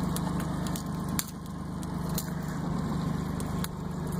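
A boat motor idling with a steady low hum, with a few light metallic clicks.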